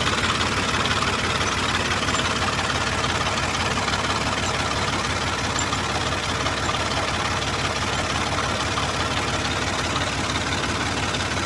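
Heavy farm-machinery diesel engine running steadily at an even speed.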